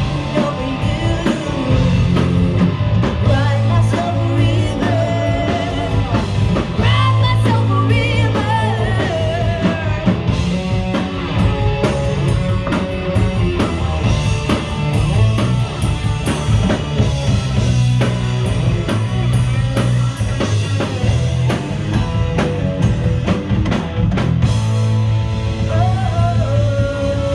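Live rock band playing: a woman sings lead over electric guitars, bass and a drum kit, heard from the audience.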